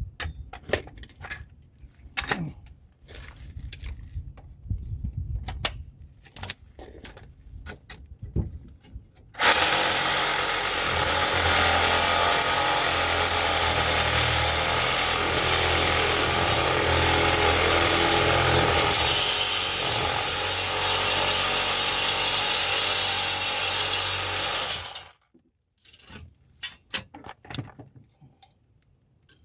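A power cutting tool running hard through the seized steel CV axle shaft for about fifteen seconds, then cutting off suddenly. Before it starts there are scattered clanks and clicks of tools being handled.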